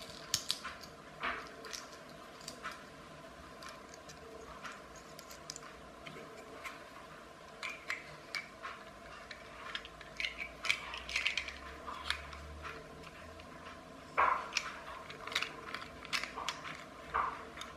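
Small plastic parts of a clockwork toy's clear engine unit being handled and fitted together by hand: irregular light clicks and scrapes, with a louder click about fourteen seconds in.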